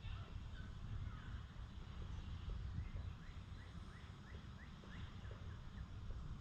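A bird calling a run of short rising chirps, about three a second, in the middle, over a low steady rumble of outdoor background noise.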